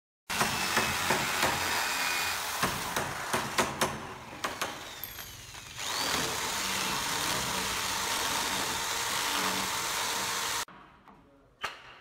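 Handheld electric drill boring into the edge of a wooden door to cut a lock mortise. Sharp knocks come every fraction of a second over the first few seconds, then the drill runs steadily before cutting off suddenly. A couple of sharp mallet blows on a chisel follow near the end.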